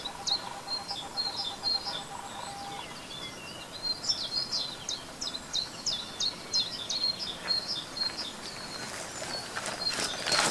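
Songbirds singing, a busy string of short high chirps and quick downward-sweeping notes repeating several times a second. Near the end a few footsteps come closer.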